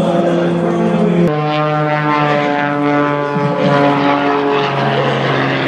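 Propeller aircraft engine droning steadily. The pitch changes abruptly about a second in, then falls slowly.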